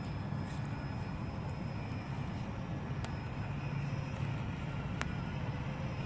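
Electric motor and gear drivetrain of a 1:10-scale Traxxas TRX-4 Blazer crawler running steadily as it drives slowly through a muddy puddle. A couple of sharp clicks come about three and five seconds in.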